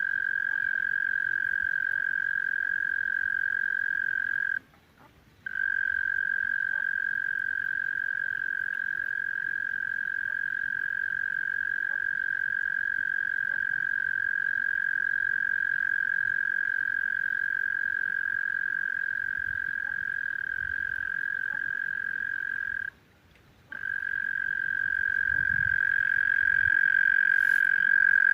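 A frog's steady, high-pitched trill held at one unchanging pitch, cutting out briefly twice: about five seconds in and about two-thirds of the way through.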